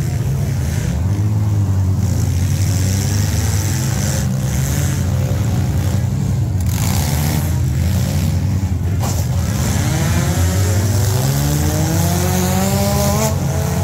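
Engines of several stock compact demolition-derby cars running and revving together, a steady engine drone with several rising and falling revs near the end.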